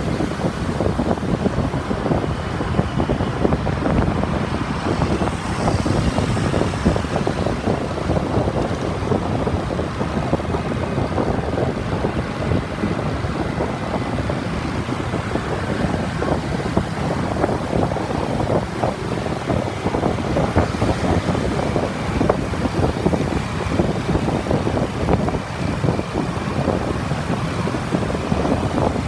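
Wind rushing and buffeting on the microphone of a moving motorbike, over steady engine and road-traffic noise.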